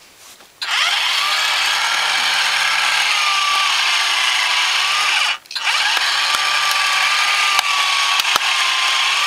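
Haynes model four-cylinder engine kit turned over by its small electric motor: a steady, drill-like whirr of motor and plastic gearing that starts about half a second in, stops briefly about five and a half seconds in, then runs on. A few sharp clicks come from the plastic mechanism, which the builder puts down to moulding nodules left on the cam lobes.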